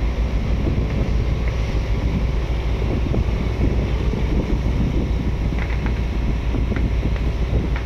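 Fishing boat's diesel engine running steadily under way, with wind buffeting the microphone and water rushing past the hull.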